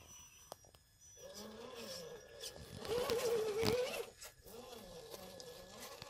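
Small electric motor and gearbox of a 1/10-scale RC rock crawler whining, the pitch rising and falling with the throttle, loudest about three seconds in. A few sharp clicks of tires or chassis on rock.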